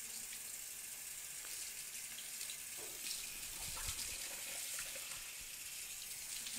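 Kitchen faucet running into a sink while a bottle is rinsed out under the stream, with a couple of light knocks about halfway through.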